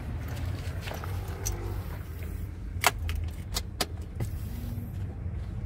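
Car keys jingling and clicking at the ignition, with a run of sharp clicks about three seconds in, over a steady low rumble.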